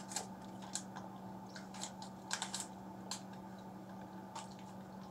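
Light, irregular clicks and taps of small plastic toy pieces being handled and fitted together, from a Kinder Surprise capsule toy, over a faint steady hum.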